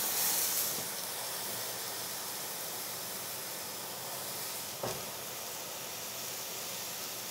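Water hissing into steam in a hot cast iron pan as oyster mushrooms are pressed down in it without oil. A steady hiss, louder for about the first second, with one small knock about five seconds in.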